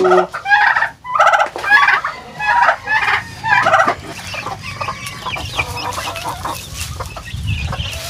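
Domestic turkeys calling and gobbling close by: loud runs of rapid, rattling calls in the first half, then quieter scattered calling from the flock.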